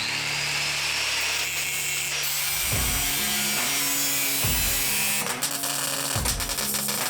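A power tool, likely an electric drill, runs steadily with a whine that rises in pitch over the first two seconds, then rattles with rapid clicking. Background music with a steady beat plays underneath.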